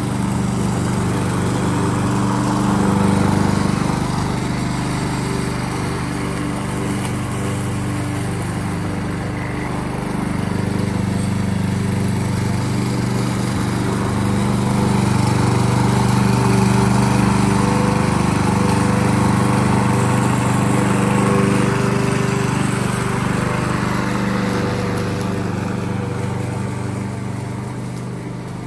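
Yardworks self-propelled gas lawnmower engine running steadily while cutting grass, its level swelling and sagging a little as the mower is pushed across the lawn.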